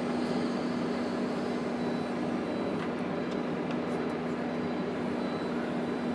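Heavy diesel machinery running steadily, with a constant engine hum and no change in speed.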